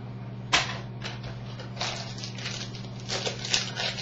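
Trading cards being handled and sorted: one sharp tap about half a second in, then dry rustling and flicking of card stock, over a steady low electrical hum.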